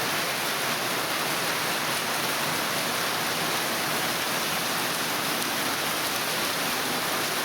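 Heavy monsoon rain pouring down steadily in an unbroken hiss, with no let-up.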